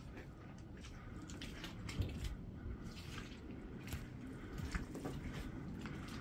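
Soft, squelching footsteps on wet, muddy ground under a low steady rumble, with a sharper tap about two seconds in.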